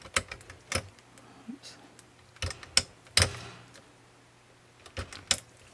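Several sharp, separate clicks and taps of a metal dental sickle scaler knocking against the guide of a Perio Star instrument sharpener as it is seated and lined up, over a faint steady low hum.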